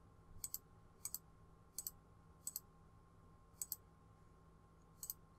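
Six faint computer mouse clicks at uneven intervals, each a quick double tick of the button being pressed and released, as the corner points of a polygon are placed on screen.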